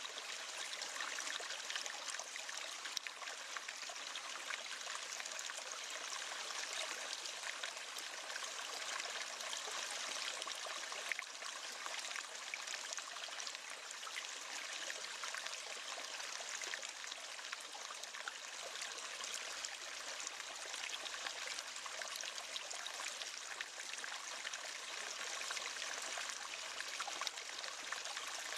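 River water flowing steadily over stones, an even rushing with fine splashing and trickling.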